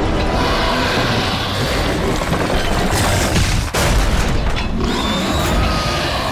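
Cartoon sound effects of a heavy crash: deep rumbling booms as paving slabs break up, with a short break a little past the middle.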